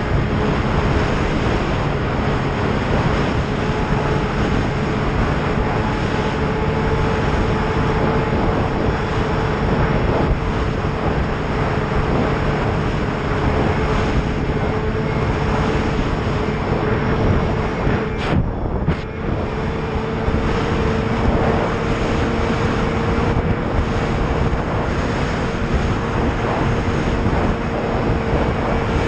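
Snowmobile engine running at a steady cruising speed under a constant rush of travel noise, its tone creeping slowly upward as the sled gains a little speed. About eighteen seconds in, the sound dips and breaks briefly, then carries on.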